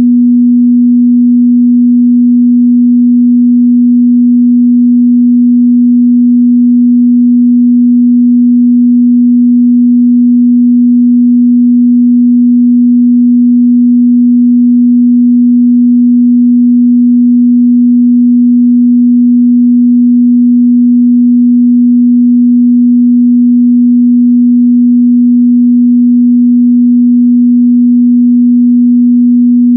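A pure 243 Hz sine-wave test tone, a single steady low hum held unbroken and loud.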